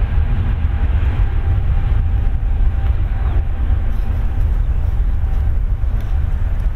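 Distant Airbus A321neo's CFM LEAP-1A jet engines running as the airliner rolls along the runway: a steady low rumble with a faint whine. Wind buffets the microphone.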